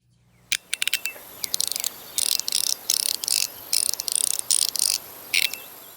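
Fidget slider being worked by hand: a few sharp clicks, then a run of short scraping slides and clicks about two seconds in.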